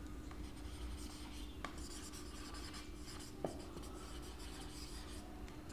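Marker pen writing on a whiteboard: faint rubbing strokes with a couple of light taps of the tip.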